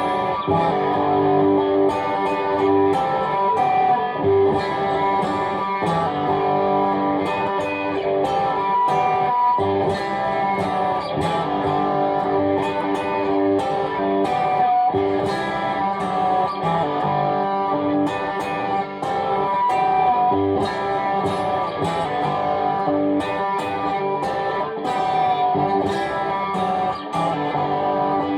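'72 Custom Telecaster electric guitar in open G tuning, strummed and picked in a steady, continuous run of chords and ringing notes.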